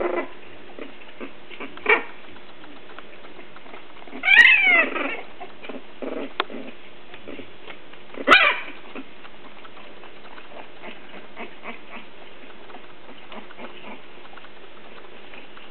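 Three-week-old English Bulldog puppies whimpering and squealing. There are a few short yelps, a longer wavering cry about four seconds in and another sharp cry about eight seconds in, over faint rustling.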